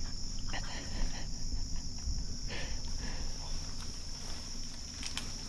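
Insects buzzing steadily at one high, even pitch, with soft scattered rustles in the undergrowth.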